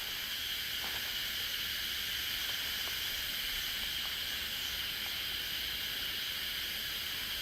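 Forest ambience carried by a steady insect chorus: an even, high buzz that holds constant without breaks.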